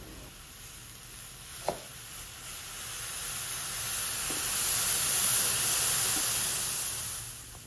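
Milk tea in a steel pot coming to the boil, a hiss of bubbling that swells louder over several seconds as the foam rises, then fades near the end. One brief click sounds about two seconds in.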